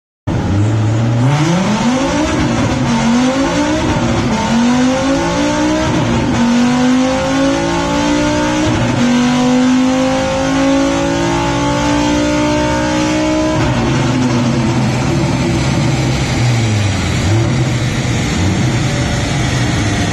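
Volkswagen Up's swapped-in 2.3-litre VR5 five-cylinder engine on a chassis dyno. After a short rev, it makes a long full-power pull, the engine note climbing steadily for about ten seconds. The throttle then closes and the revs fall away, dipping and picking up once more near the end.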